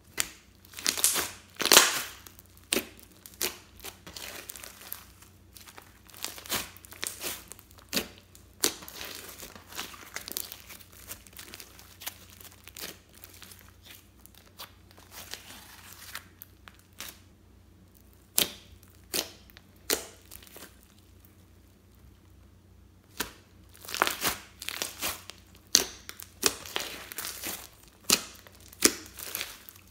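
Slime being kneaded, stretched and pressed by hand, its trapped air popping and crackling in irregular clusters of sharp pops. The pops are densest near the start and again near the end, and sparser in between.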